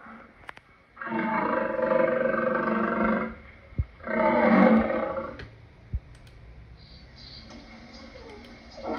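Lion roaring: two long calls, the first about two seconds long, the second shorter and louder.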